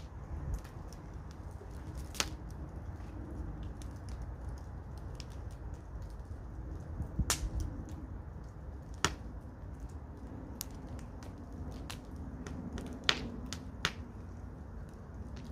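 Wood fire crackling: irregular sharp pops and snaps, a handful much louder than the rest, over a steady low rumble.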